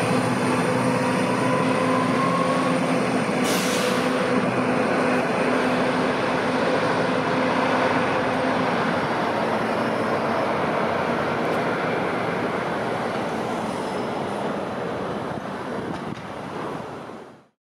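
Detroit Diesel Series 50 four-cylinder engine of a 1999 NovaBus RTS city bus pulling away, with a whine rising in pitch as it accelerates over the first few seconds, then slowly fading as the bus drives off among street traffic. A short hiss about three and a half seconds in; the sound fades out near the end.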